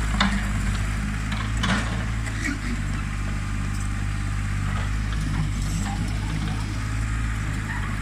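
Old backhoe loader's diesel engine running steadily as it works soil, with two metal knocks in the first couple of seconds.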